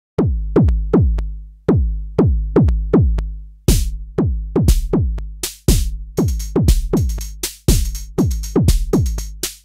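Electronic drum-machine beat starting out of silence: a pattern of deep kick drums whose pitch falls with each hit. A snare or clap hit joins about three and a half seconds in, and a fast hi-hat layer near six seconds in.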